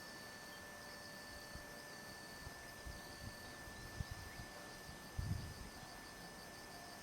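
Faint insects chirping in repeated short trills, over quiet outdoor background, with a brief low rumble of wind on the microphone about five seconds in.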